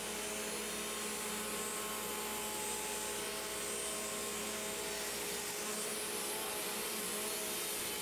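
Bosch 4100XC-10 10-inch table saw with a Milwaukee blade ripping a red oak board: the motor runs at a steady whine under a constant cutting noise as the board feeds through.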